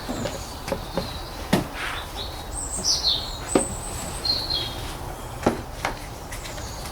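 Scattered sharp plastic clicks and knocks as the air filter is handled in and out of the plastic airbox, with a bird chirping a few times in the background.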